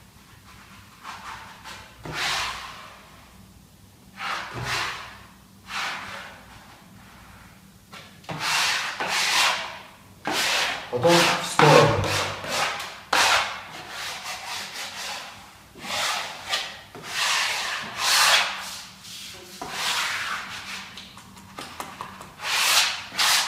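Plastic wallpaper smoother swept repeatedly across freshly glued vinyl wallpaper, pushing the air out from under it: a series of scraping, rubbing strokes. The strokes are few at first and come thick and fast from about eight seconds in.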